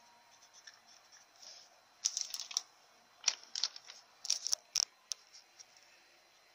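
A sheet of lined notebook paper rustling and crackling as it is handled close to the microphone, a run of sharp crackles starting about two seconds in and stopping a little after five seconds.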